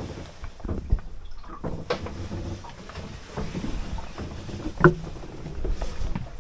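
Knocks, bumps and clatter of someone climbing a small sailboat's wooden companionway steps out of the cabin and handling the camera, with a sharper thump about five seconds in, then wind and water noise on deck.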